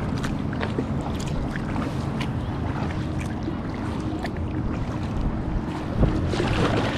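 Water splashing and lapping around a kayak in choppy water, with scattered small splashes and drips, and wind buffeting the microphone. A louder thump and rush of water about six seconds in.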